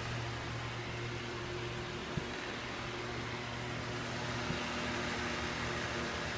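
Steady low hum over an even hiss: room background noise from a running fan or appliance, with a faint tick about two seconds in.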